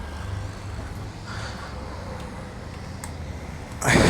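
Low steady engine hum, then near the end a sudden loud blast as a KTM Duke motorcycle engine, running with its exhaust removed, fires up and settles into a rough pitched note.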